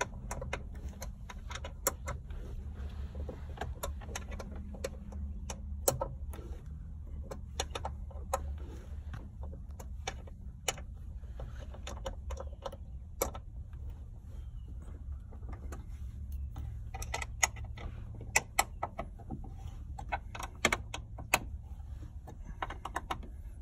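Irregular small metallic clicks and taps of a hand tool working the mounting bolts of a grab handle on a windshield pillar, busiest near the end, over a steady low hum.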